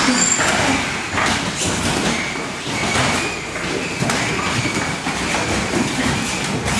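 Thuds and scuffling of fighters clinching and grappling on gym mats, with scattered knocks over a steady background noise.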